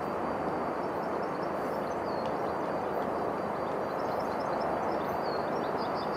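Steady rushing outdoor noise with small birds chirping over it in short high calls, a few about two seconds in and a cluster near the end.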